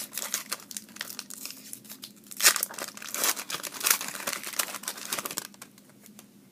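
Foil wrapper of a trading-card pack being torn open and crinkled by hand. The crackling stops about five and a half seconds in.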